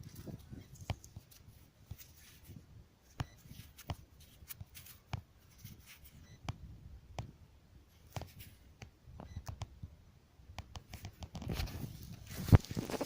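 Scattered light clicks and rustling of close handling, with a louder rustle building near the end and one sharp thump about twelve and a half seconds in.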